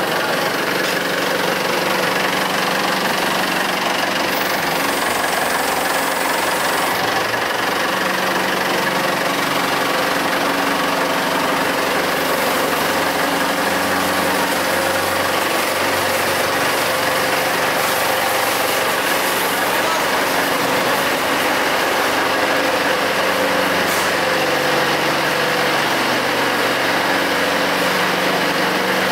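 Forklift engine running steadily as the truck drives with a heavy load on its forks, its note shifting slightly in pitch as it moves.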